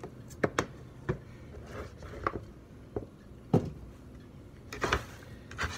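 Raw green banana slices being scooped up and handled on a plastic cutting board: about ten irregular light knocks and clatters, the loudest about three and a half seconds in.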